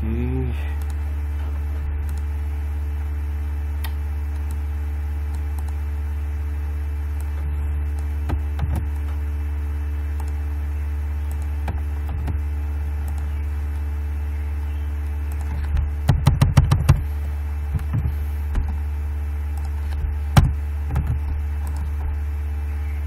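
Steady low electrical hum on the microphone line. Computer keys are typed over it: a few scattered key clicks, then a quick run of about eight keystrokes some two-thirds of the way through.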